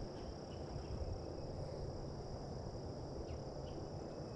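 Insects trilling steadily in one high, even tone, over a low rumble, with a few faint short chirps.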